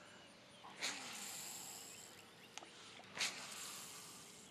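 Two quick swishes of a fishing rod being cast, about a second in and again past the three-second mark, each followed by a short hiss of line running off a baitcasting reel.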